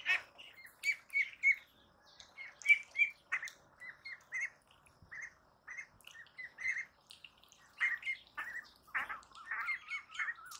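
Young ducks peeping: a string of short, high calls, several a second, with a run of harsher, squawkier calls near the end.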